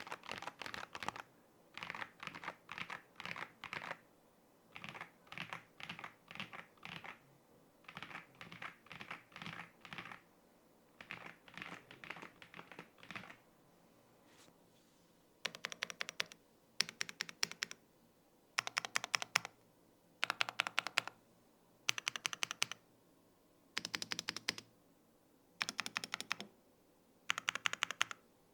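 HELLOGANSS XS98T mechanical keyboard being typed on in quick bursts of keystrokes with short gaps between them. After a pause about halfway through, the bursts become louder and sharper.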